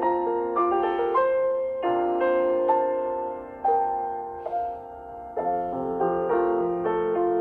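Background music: a slow, gentle piano melody with sustained chords.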